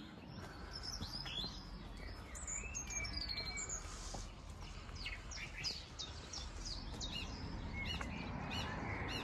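Several small birds singing and chirping: many quick high chirps and short whistled phrases overlapping, over a steady low rumble.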